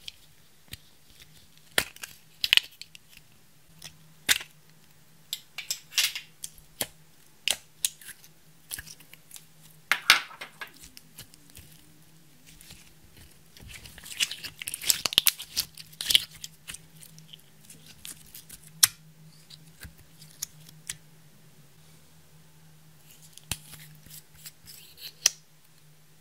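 Plastic cherry-shaped cosmetic cases and makeup being handled over a glass dish: a string of sharp plastic clicks and taps, with a denser patch of crackling scrapes about halfway through. A faint steady hum lies underneath.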